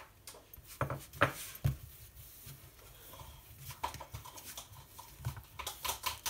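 Hand spreading cooking oil over a serving tray, rubbing and patting its surface. A few sharp knocks about a second in, then rubbing and a quick run of pats and taps near the end.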